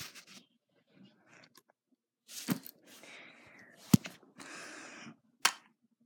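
Handling noise as the phone and plush toys are moved about: three sharp knocks about a second and a half apart, the middle one loudest, with soft fabric rustling between them.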